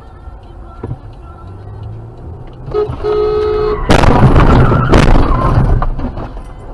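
A car crash heard from inside the car that is hit. A horn sounds for about a second, then comes a loud collision with a long noisy crunch. A second sharp hit follows about a second later before the noise dies down.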